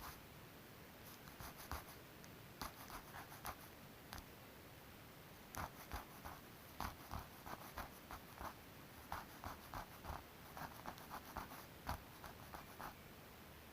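Faint, scratchy hand strokes over body filler on a car panel, coming in irregular runs of several short strokes a second with pauses between.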